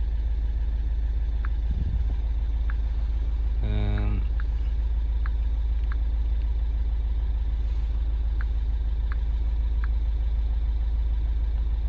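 Mini Countryman Cooper S's turbocharged four-cylinder engine idling steadily with a low, even rumble, with a few faint short ticks scattered through it.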